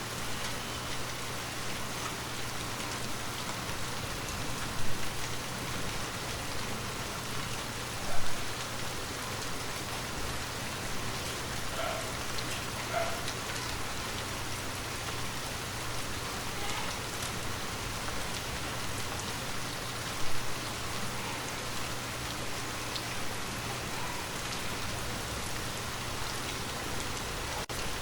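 Steady rain falling on a surface, with three brief louder drop hits standing out above the even patter.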